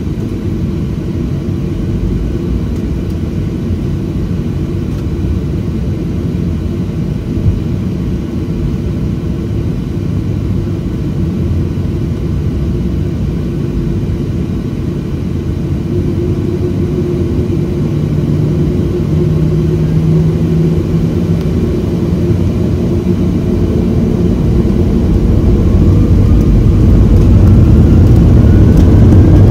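Boeing 737-700's CFM56-7B jet engines heard from inside the cabin: a steady low rumble that grows louder through the second half, with a rising whine near the end as the engines spool up for the takeoff roll.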